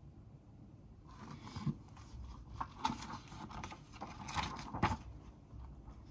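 Pages of a picture book being turned and handled: a series of paper rustles and light knocks.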